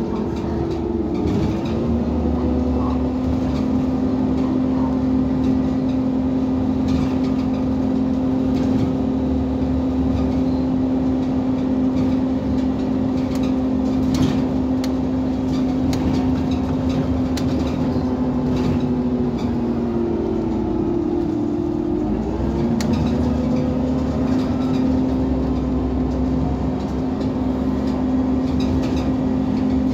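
Irisbus Citelis 18 articulated bus running on its Iveco Cursor 8 natural-gas engine with Voith automatic gearbox: a steady hum whose pitch dips briefly and comes back just after the start and again about twenty seconds in, with light rattles and clicks.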